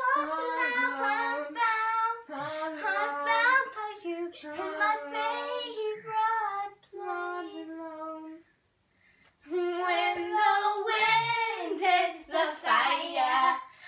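Young girls singing a song without any instrumental accompaniment. The singing breaks off for about a second a little past halfway, then picks up again.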